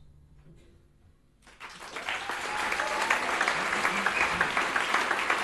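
After a moment of near quiet as the double bass stops, an audience breaks into applause about a second and a half in, swelling quickly and then holding steady.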